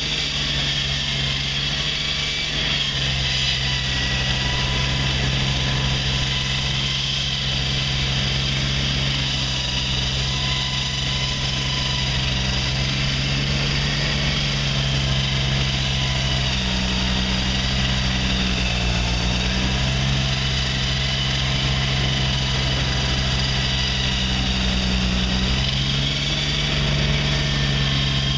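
Heavy construction equipment engine running steadily at a constant speed, its pitch dipping slightly twice.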